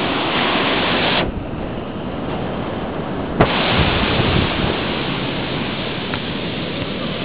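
Ocean surf breaking and washing up a sand beach, a steady rush. About a second in it turns duller for two seconds, then comes back full with a sharp click.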